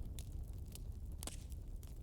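Wood fire in a fireplace crackling: irregular sharp pops, four or five in two seconds with the strongest a little past halfway, over a steady low rumble.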